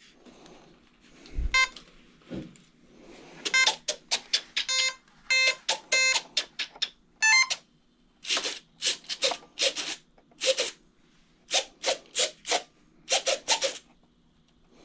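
A run of short electronic beeps from the Hobbyzone Aeroscout RC airplane's electronics as it is powered up, followed by a series of short buzzing bursts.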